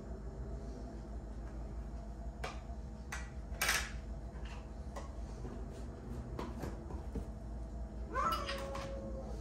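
Scattered clinks and knocks of a spoon, plates and a mayonnaise jar against a plastic mixing bowl and the counter, the loudest clink a little under 4 seconds in. A short high whine a little after 8 seconds.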